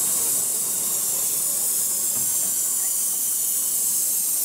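Steady hiss of escaping steam from a standing ČSD class 475.1 steam locomotive, No. 475.196, kept in steam.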